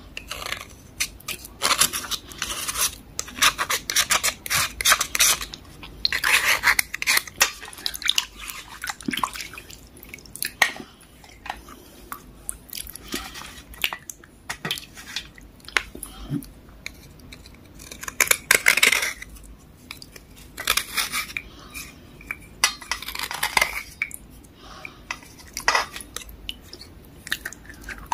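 A kitchen knife blade scraping the water-softened outer layer off a soaked dark block, in repeated short strokes in clusters, with light splashing in a bowl of water.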